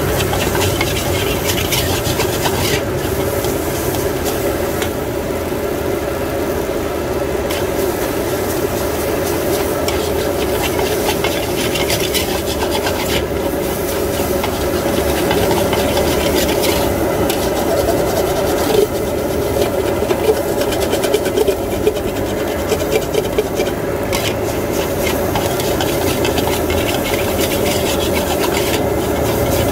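A metal spatula scrapes and pushes fried rice around an aluminium wok in continuous rasping strokes, over a steady noise underneath. About two-thirds of the way through, a few sharper knocks of the spatula against the wok stand out.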